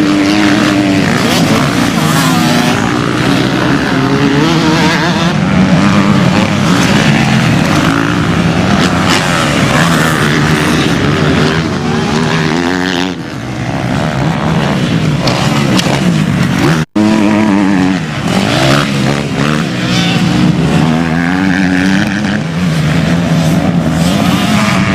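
Several motocross motorcycle engines racing on a dirt track, revving hard with pitch rising and falling again and again as the riders accelerate and shift. The sound cuts out for an instant about two-thirds of the way through.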